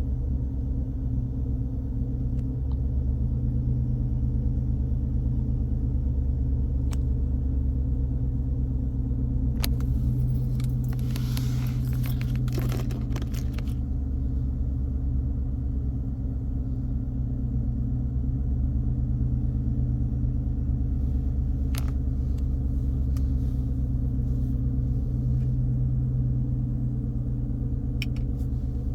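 2015 Ford F-150 engine idling, heard from inside the cab as a steady low rumble. A few faint clicks and a brief rustle about ten seconds in.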